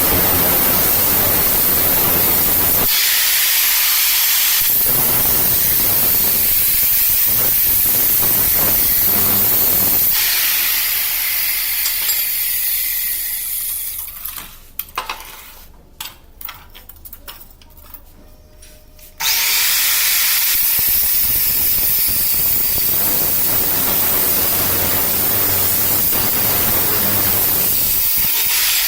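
Loud, steady hissing noise of metalworking on a car exhaust pipe in a repair shop. About halfway through it drops away for several seconds with scattered clicks and knocks, then starts again at full strength.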